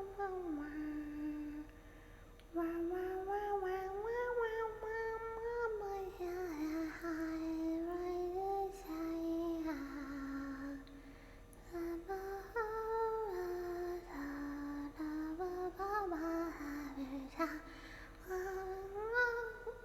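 A young woman singing to herself while drinking, a wandering wordless tune of long held, sliding notes, with brief breaks about two seconds in and again around eleven seconds.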